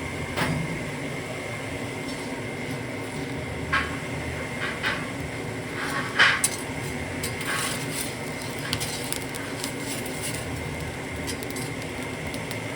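Irregular metallic clinks and clanks of steel pieces or tools being handled, a dozen or so scattered hits with the loudest about six seconds in, over a steady hum with a faint high tone.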